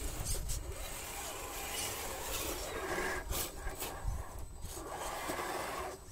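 Axial SCX10 scale RC crawlers climbing a sandy rock ledge: their small electric drivetrains and tyres grind and scrape over sand and stone, with a few sharp clicks, while wind rumbles on the microphone.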